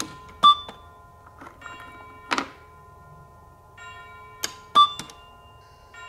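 Plastic toy figures clacking on a toy supermarket checkout counter, twice followed by a short electronic scanner beep from the toy cash register set, over a light electronic jingle from the toy.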